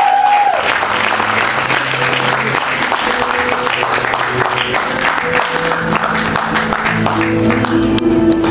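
Audience applauding over background music with long held notes.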